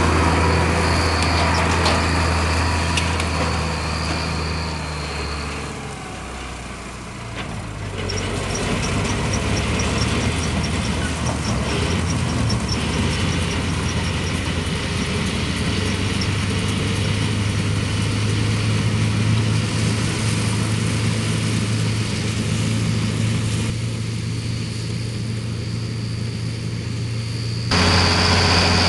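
Case IH 1056 XL tractor's six-cylinder diesel engine pulling a John Deere 360 pull-type combine while it threshes, running steadily together with the combine's threshing machinery. The sound grows louder or fainter at several shifts as the machines pass close or move off, and there is a light rapid ticking for a few seconds near the middle.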